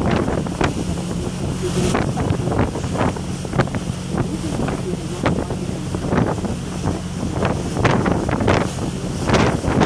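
Wind buffeting the microphone in irregular gusts over the steady low drone of a passenger boat's engine, with the wash of the boat's wake.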